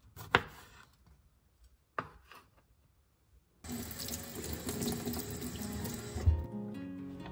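Two sharp knife strokes on a wooden cutting board. A kitchen tap then runs into a stainless steel sink as hands rinse under the stream, and the water stops with a dull thump as the tap is shut a little over six seconds in. Soft plucked-string music begins near the end.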